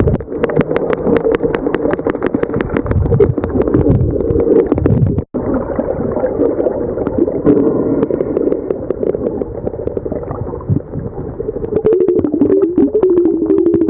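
Sperm whale clicks heard underwater: rapid trains of sharp clicks, several a second, against a steady underwater rumble and hiss. The sound cuts out abruptly about five seconds in, and click trains return near the end.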